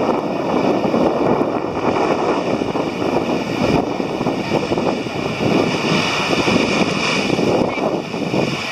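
Wind buffeting the microphone over water rushing and splashing along the hull of a sailing yacht under way in a fresh breeze, a steady, gusty noise.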